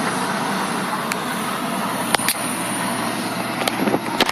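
Heavy demolition excavator working: steady engine and machinery noise, with a few sharp cracks and knocks from about two seconds in.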